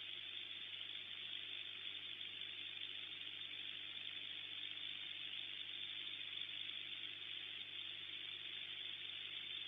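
Steady hiss with a faint low hum underneath, even throughout with no distinct calls or knocks standing out.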